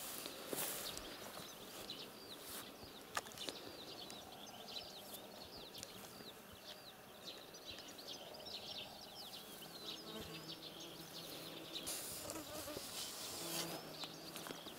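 Quiet outdoor ambience of many small, rapid bird chirps and twitters, with an insect buzzing close by as a low steady drone in the last few seconds.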